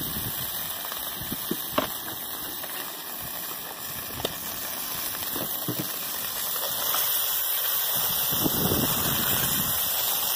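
Butter sizzling and spattering in a hot pan on a portable gas burner: a steady hiss with a few sharp pops, growing a little louder in the second half.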